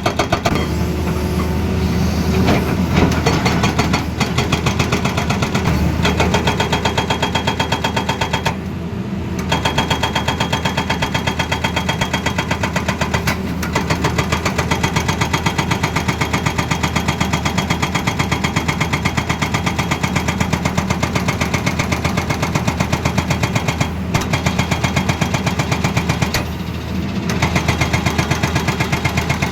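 Tata Hitachi excavator working, with a rapid, steady hammering over the diesel engine's hum. The hammering breaks off briefly twice.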